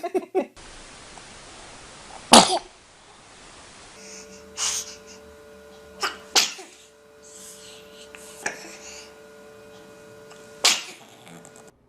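Babies sneezing: a series of short, sharp infant sneezes, about six of them, spaced a second or two apart. The loudest comes about two and a half seconds in.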